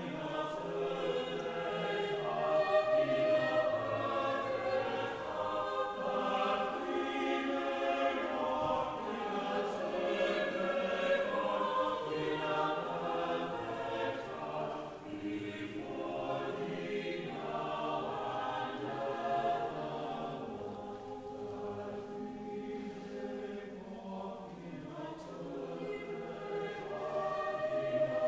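Mixed church choir of men's and women's voices singing an anthem together, with long held notes.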